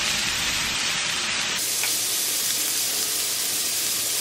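Pork sizzling steadily in a hot grill pan.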